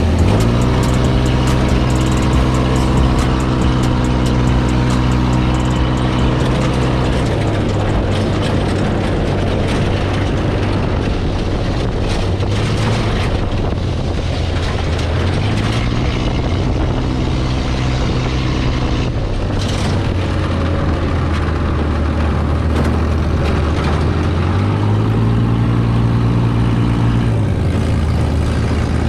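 Off-road buggy engine running under way. Its pitch steps up and holds for a few seconds, then drops back, three times: near the start, in the middle, and near the end. A steady rush of broad noise with scattered knocks sits under it.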